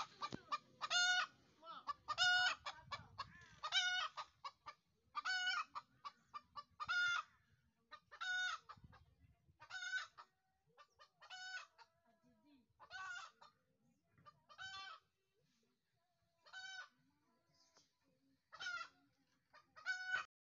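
A chicken calling over and over: about thirteen short, pitched calls, one roughly every one and a half seconds, spacing out a little toward the end. Faint low rustling lies under the first few calls.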